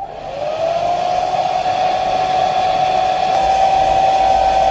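Handheld hairdryer switched on with a click, its motor whine rising as it spins up and then running steadily with a rush of blowing air, heating a phone's glass back cover.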